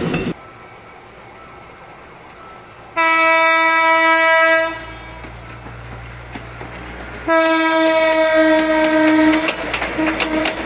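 Horn of a PNR PT INKA diesel multiple unit, set to the Rotem DMU's horn notes, sounding two long steady blasts of about two seconds each, a few seconds apart, with a short extra toot after the second. The unit's diesel engine rumbles low underneath, and its wheels clack over rail joints near the end as it passes.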